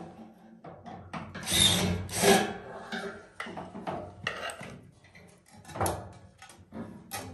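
Irregular scraping, rubbing and knocking of metal parts as the burner assembly of a floor-standing gas boiler is worked loose by hand, loudest about two seconds in.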